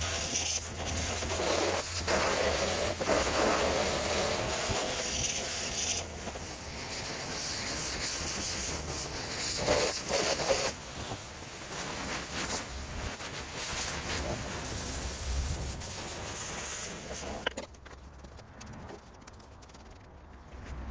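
Pressure washer jet spraying and hissing against a surface, with a low machine hum underneath; the spray stops near the end, leaving a quieter background.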